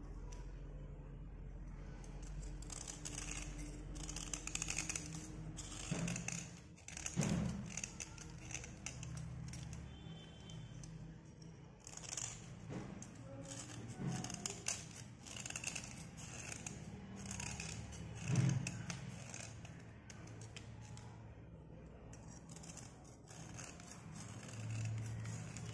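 Knife blade scraping a slate pencil: many short, scratchy rasping strokes shaving off its surface, with a couple of louder low knocks.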